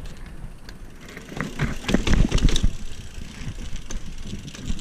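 Mountain bike rolling over sandstone slickrock: a low steady rumble of tyres and ride noise, with a burst of loud knocks and rattles from the bike jolting over rock about one and a half to two and a half seconds in, and scattered clicks.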